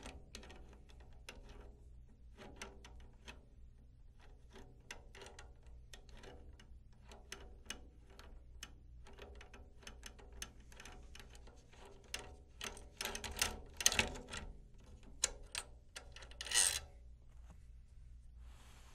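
Drum key turning the tension rods of a 10-inch tom, giving a steady run of small metallic clicks and ticks as the rods turn in the lugs. Louder knocks and rattles of metal on the hoop come in a cluster about two-thirds of the way through.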